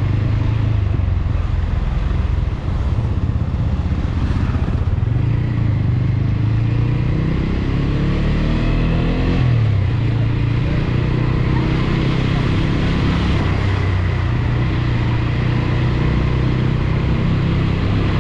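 TVS Apache RTR 200 4V motorcycle's single-cylinder engine running under way. It dips briefly at a gear change near the start, rises steadily in pitch as it accelerates for a few seconds, then drops sharply at an upshift about halfway through and carries on steadily.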